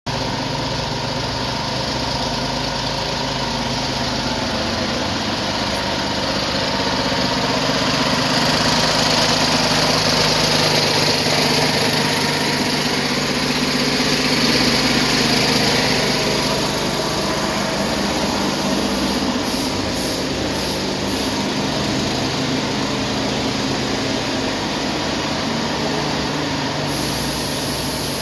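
A motor running steadily: a constant mechanical hum with hiss, which grows louder for several seconds in the middle.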